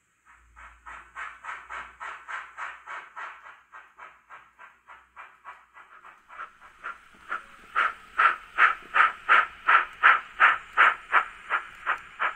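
Steam-locomotive chuffing from an H0e narrow-gauge model steam train: even chuffs about two and a half a second with a faint hiss. The chuffs grow louder about seven seconds in.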